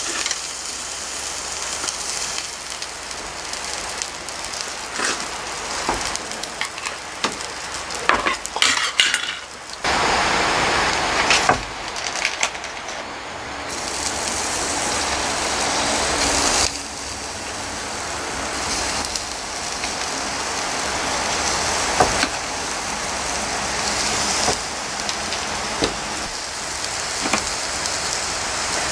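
Meat-wrapped vegetable rolls sizzling on the wire grate of a small tabletop barbecue grill, with scattered clicks and clinks of metal tongs. The sizzle jumps in level abruptly a few times.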